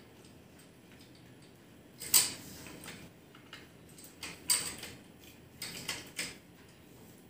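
Metal clicks and knocks from a child's kick scooter being assembled by hand, as the handlebar stem with its push-button spring clip is fitted into the fork tube and its clamp is handled. One sharp click about two seconds in, then a few smaller clicks and knocks between about four and six seconds.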